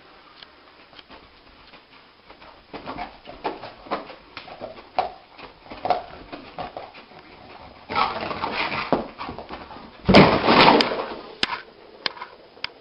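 A sleeping, dreaming dog whimpering faintly while its legs twitch and scuff on carpet. About ten seconds in, the loudest sound comes as a noisy scramble when it jumps up.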